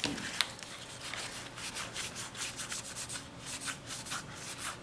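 Magic: The Gathering trading cards being slid and flipped against each other in the hands, a string of short, soft scraping swishes a few times a second.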